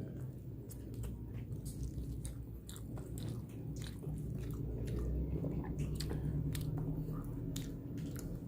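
Close-miked chewing and biting of a nasi padang meal of rice and chicken, with many small wet mouth clicks over a low hum.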